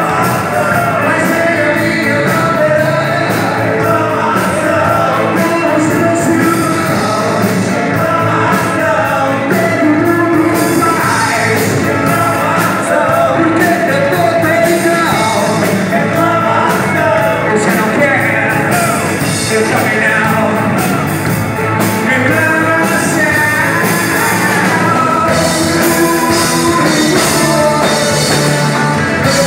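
Live rock band playing: electric guitar, bass guitar, drum kit and keyboard, with a male singer. Loud and steady, with cymbals and drums beating throughout.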